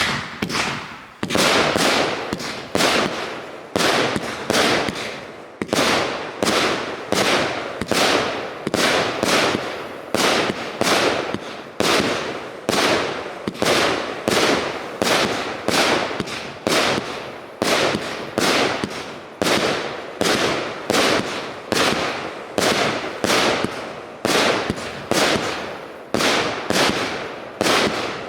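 Heron Fireworks 'Werewolf' multi-shot firework firing shot after shot in a steady run, about one or two loud bangs a second, each dying away quickly before the next.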